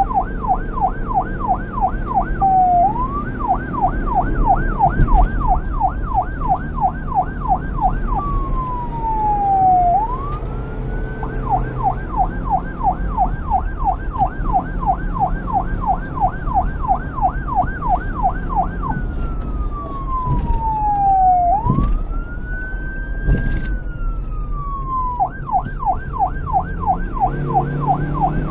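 Police siren alternating between a fast yelp, about four rising-and-falling sweeps a second, and slower wail glides that fall and rise, over a low rumble.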